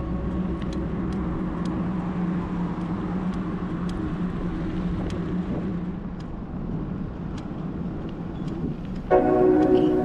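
Street traffic and road noise heard from a bicycle riding along a city street, with a steady low hum under it. Background music fades away in the first second and cuts back in suddenly about nine seconds in.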